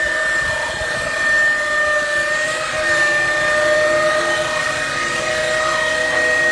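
The hydraulically driven automatic knife grinder of a Fendt Tigo 90XR loader wagon running in its knife cassette, sharpening the steel knives: a steady whine of several tones over a loud hiss.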